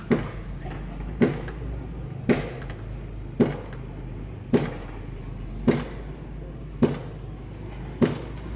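Steady blows on timber, about one a second, eight in all, each with a short ringing tail.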